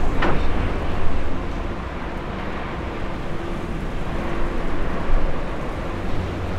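Heavy-haulage ballast tractor's diesel engine running steadily with a low rumble, a little louder in the first second and a half. A brief sharp sound right at the start.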